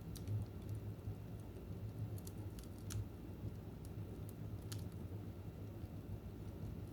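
Wood fire burning in a fireplace: a steady low rumble of flames with sparse, sharp crackles and pops every second or two.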